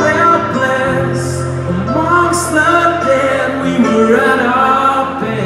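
Live piano ballad: a singer's voice over piano chords and a sustained low keyboard drone.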